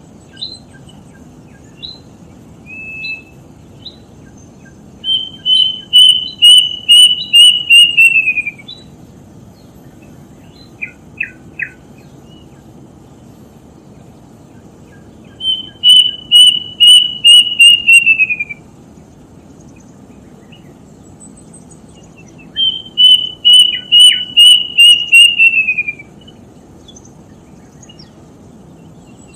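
Bird known locally as the 'tutit tutit' singing three phrases, each a quick run of about eight or nine clear whistled notes that hold pitch and then fall away at the end, repeated every eight or nine seconds. Faint short chirps come in between.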